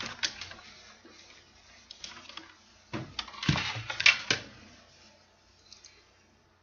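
Rustling and small clicks of folded paper as a 3D origami butterfly made of paper units is handled and its wings are pinched. The noises come in short clusters, the busiest and loudest from about three to four and a half seconds in.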